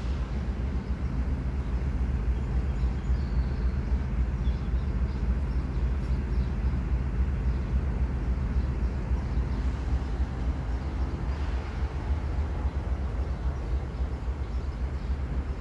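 Steady low drone of a CSX freight train's diesel locomotive running, heard from beside the stopped cars, with a flickering low rumble underneath.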